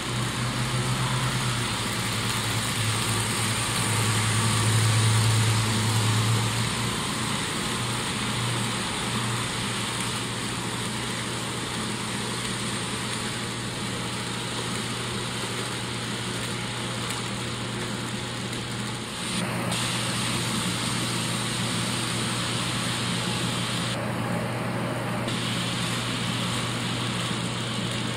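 HO scale model freight train running by on sectional track. The three C44-9W model diesel locomotives give a steady hum, loudest in the first several seconds as they pass close. After that the double-stack container cars make an even rolling rumble on the rails.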